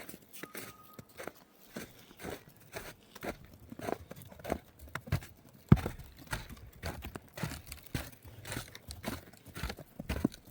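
Footsteps crunching in snow, an irregular run of crunches a few a second, with one louder crunch about halfway through.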